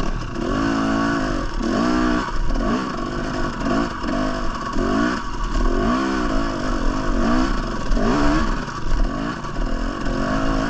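Two-stroke Husqvarna TE300 dirt bike engine revving up and dropping back repeatedly, roughly once a second, as it is ridden through rocky technical terrain.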